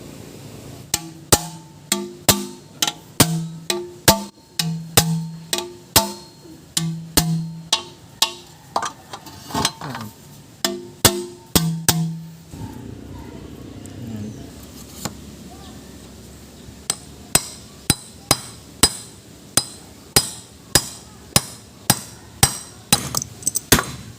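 A hammer tapping on metal engine parts over and over, about two strikes a second, with a pause of a few seconds in the middle. Music with a simple melody plays along with the first half.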